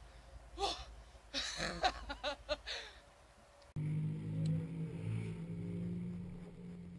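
Short vocal exclamations over a low wind rumble on the microphone, then an abrupt cut about three and a half seconds in to background music with a steady low drone.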